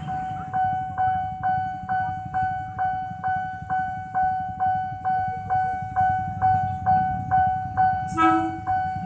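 Railway level-crossing warning bell ringing in a steady rhythm, about two strikes a second, each strike dying away before the next. A short horn toot comes near the end.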